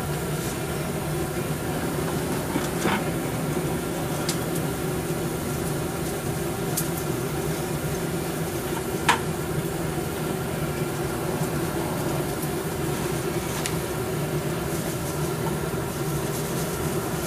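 Blacksmith shop equipment running with a steady drone, with a few light clicks and taps scattered through it.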